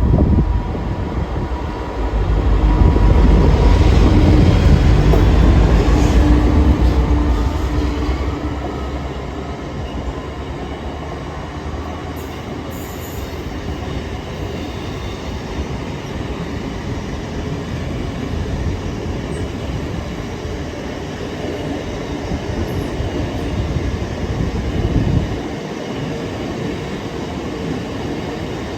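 Class 59 diesel locomotive passing, its EMD two-stroke V16 engine loudest for a few seconds early on, followed by a long train of aggregate wagons rolling past with steady wheel-on-rail noise. The deep rumble drops away about 25 seconds in.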